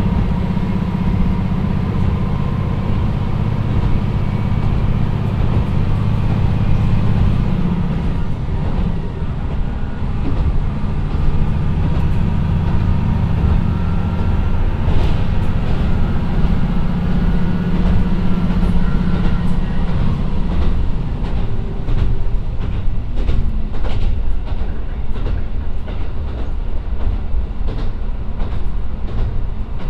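KiHa 125 diesel railcar with its Niigata DMF13HZ engine running under way, heard from inside the car: a steady low engine drone with wheel and rail noise. About two-thirds of the way in the engine drone eases and the wheels clicking over rail joints become more prominent and regular.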